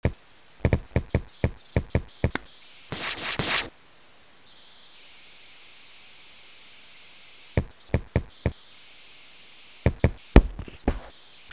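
Quick runs of short, sharp knocks or taps, with a brief noisy rustle about three seconds in; cartoon sound effects.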